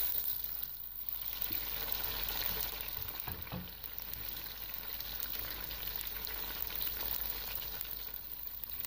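Sliced onions frying in hot oil in a pot, sizzling steadily with fine crackles and spits.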